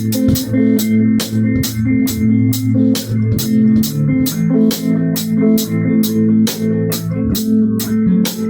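A band playing: a drum kit keeps a steady beat with cymbal strokes about three a second, over bass and guitar.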